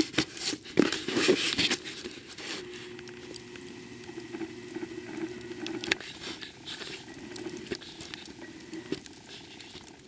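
Rustles and knocks from a handheld camera being moved in the first two seconds, then a faint steady hum with scattered small ticks.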